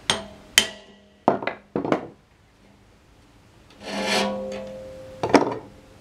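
Sharp hammer blows on a tooth swage clamped to a circular sawmill blade tooth, about six in the first two seconds, each with a brief metallic ring, spreading the dulled tooth tip wider. A rasping scrape follows about four seconds in, then two more quick hits near the end.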